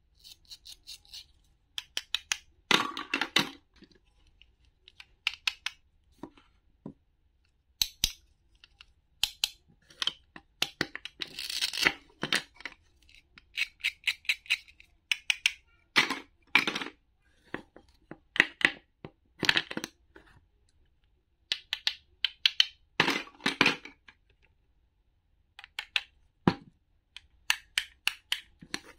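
Hook-and-loop (velcro) pads on toy plastic play-food halves being ripped apart and pressed back together, over and over: short scratchy ripping bursts with gaps between, mixed with light clicks and knocks of the plastic pieces.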